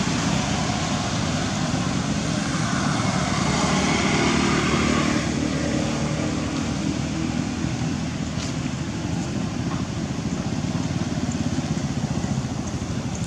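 Steady noise of a motor vehicle engine running, fuller in the first five seconds and then easing to a lower steady rumble.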